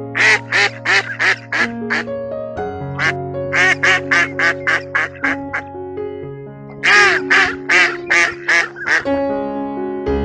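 Duck quacking in three runs of short, rapid quacks, about three a second, over background music with long held notes.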